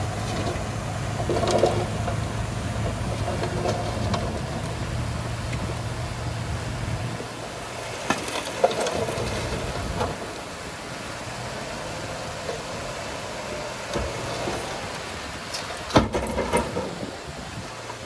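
Heavy diesel engine of earthmoving machinery running steadily, dying away about seven seconds in. A few sharp knocks follow over a quieter rumbling background.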